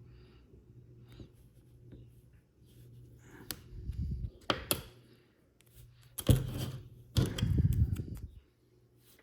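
Small plastic snap-together toy-car parts being handled and pressed together by hand. It is faint at first, with sharp plastic clicks about three and a half and four and a half seconds in, then a knock and heavier handling noise between about six and eight seconds.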